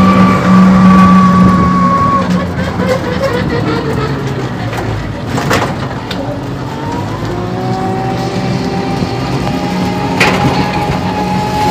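Ride in an electric rickshaw: its motor's whine holds steady, fades about two seconds in, then rises in pitch again past halfway as it picks up speed, over the rumble of the moving vehicle. Two sharp knocks come about five and a half and ten seconds in.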